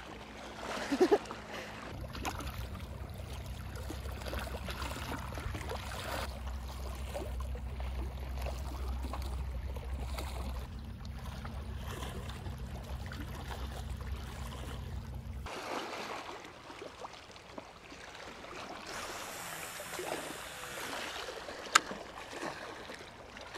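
Waves washing against a rocky shoreline, an even watery hiss. A low steady rumble runs through the first two-thirds and stops abruptly. There is one sharp click near the end.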